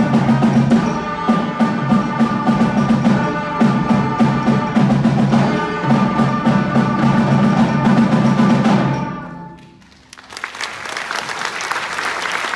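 Seventh-grade concert band playing the final bars of a piece, trumpets and other winds over regular drum and percussion strokes; the music ends about nine seconds in and audience applause starts a second later.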